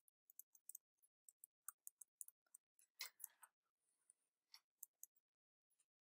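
Faint computer keyboard typing: a run of light keystroke clicks, about four a second, as a short title is typed in.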